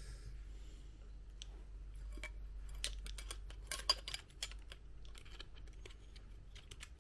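Light clicks and taps of small metal fly-reel parts being handled and fitted back together, scattered and irregular, with a denser run of clicks about three to four seconds in.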